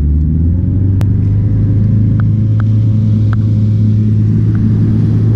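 Outboard motor pushing a small aluminium jon boat, running steadily at speed after spinning up: a loud, even low drone, with a few faint ticks.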